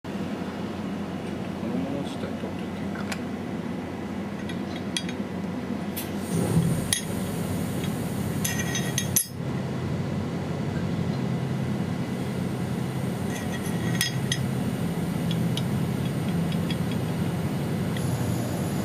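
Machining center running with a steady hum, broken by several sharp metallic clinks and knocks about six to nine seconds in and again around fourteen seconds; a thin high whine comes in near the end.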